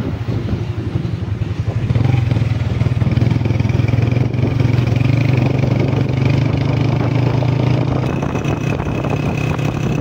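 A motor vehicle's engine running at a steady speed while on the move, with wind and road noise over it; it grows a little louder about two seconds in.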